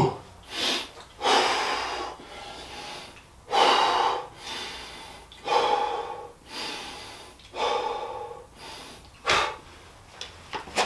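A man taking deep, forceful breaths in and out through the mouth, one about every two seconds, psyching up just before starting a set of burpees. A single sharp smack right at the start.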